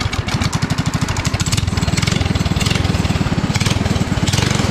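Small air-cooled single-cylinder go-kart engine with a homemade exhaust pipe running steadily, an even rapid chug of firing pulses, a little louder from about a second and a half in.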